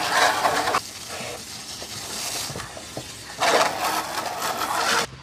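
Water spraying from a garden hose nozzle into a plastic barrel with a steady hiss, stopping about a second in. A second burst of the same splashing hiss comes near the end and cuts off suddenly.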